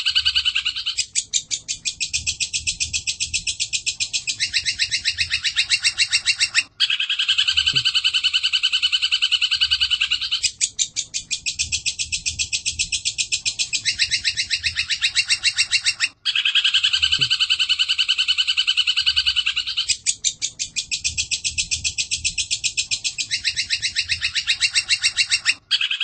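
Looped bird-song tutor recording of fighting Eurasian tree sparrows (burung gereja) mixed with a 'kunti' call: dense, rapid, high trills and chirps with no pause. The loop repeats about every nine and a half seconds, with a brief cut at each restart.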